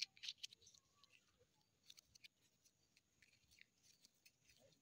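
Near silence, with faint scattered clicks and rustles, busiest in the first second.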